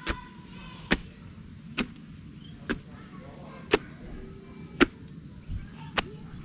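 Sharp knocks repeating evenly about once a second, seven in all, over a steady low background hum.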